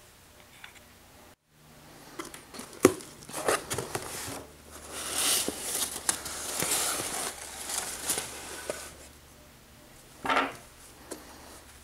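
Shredded newspaper packing and cloth bags rustling and crinkling as a hand digs through a cardboard shipping box, with a few sharp clicks. The rustling starts about two seconds in and dies down, with one more short burst near the end.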